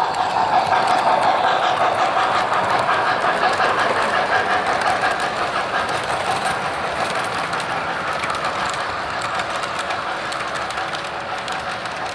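O-gauge model freight train, an MTH RailKing 0-6-0 steam switcher pulling freight cars, rolling along sectional track with a fast clicking clatter of wheels on rails. The clatter is loudest a second or two in as the locomotive passes close by, then slowly fades as the cars and caboose trail past.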